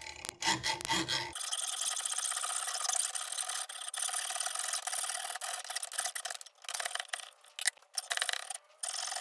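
Hand hacksaw sawing in continuous back-and-forth strokes, starting about a second and a half in after a few handling clicks. The blade is dull enough to need replacing.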